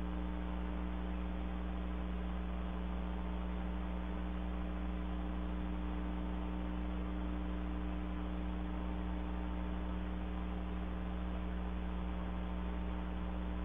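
Steady mains hum under a constant hiss, picked up by a security camera's built-in microphone.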